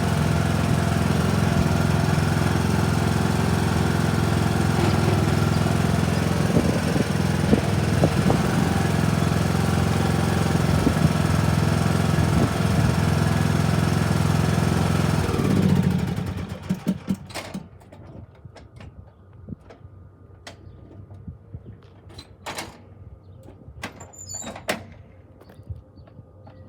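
Riding lawn mower engine running steadily, then shut off about sixteen seconds in and winding down to a stop. Afterwards a few sharp knocks.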